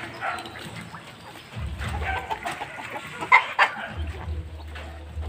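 Chickens clucking around the coops, with two louder calls in quick succession a little over three seconds in.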